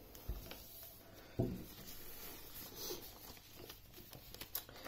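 Faint rustling and soft taps of a sheet of paper being folded and creased by hand on a cloth-covered table, with two soft thumps in the first second and a half.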